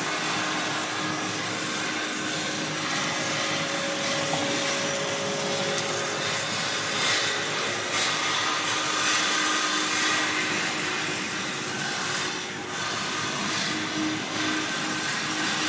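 Steady drone of machinery running in a factory hall: a continuous noisy hum with faint steady low tones and no distinct strikes.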